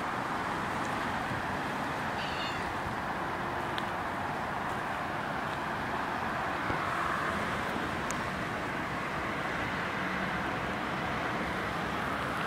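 A cat gives one short, high-pitched meow about two seconds in, over a steady, even background noise.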